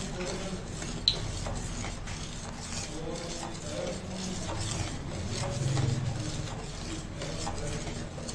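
A spoon stirring tomato ketchup in a steel saucepan, scraping and clinking against the pan, with one sharper clink about a second in.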